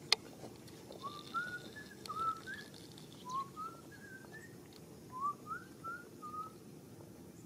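A sharp click just after the start, then a run of short whistled notes, each sliding upward, between about 1 and 2 kHz. They come in two phrases, about one to four seconds in and again about five to six and a half seconds in.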